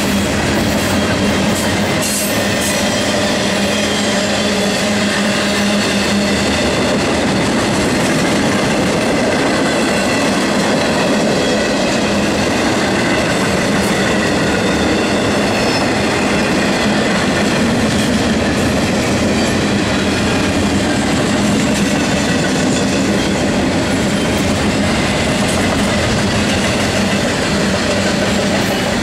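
Double-stack intermodal well cars of a Norfolk Southern freight train rolling past: a steady, loud rumble and rattle of steel wheels on the rails with a steady low hum underneath and a few faint clicks.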